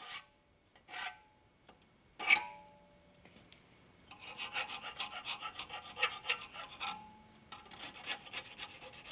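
A hand file rasps over a small brass hinge tube held in a vise, smoothing the ragged slot cut in the tube. It starts with three sharp clinks, then about four seconds in come quick back-and-forth strokes in two runs with a short pause between them.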